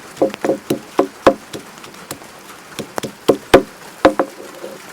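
Garlic being crushed by hand: a run of sharp, irregular knocks, about a dozen in a few seconds, some in quick pairs.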